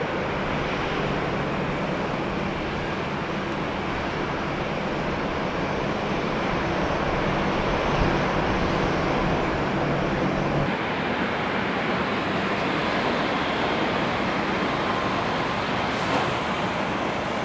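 Jet airliner engines running, a steady rush of turbofan noise; a low hum underneath drops out about ten seconds in.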